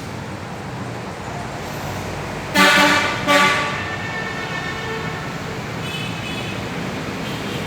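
Wood-sawing machine running with a steady noise, broken about two and a half seconds in by two short, loud, ringing pitched whines close together that fade out over the next second or two.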